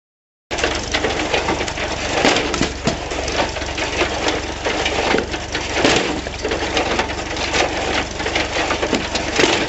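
Homemade wood splitter built from a John Deere 14T hay baler running: a loud, continuous mechanical clatter with a low steady hum under many sharp knocks and clicks.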